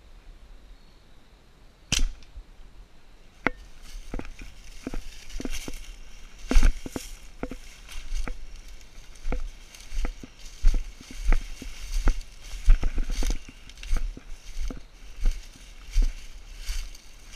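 A single sharp snap about two seconds in, then footsteps crunching through dry leaf litter and brush, about two steps a second with low thumps.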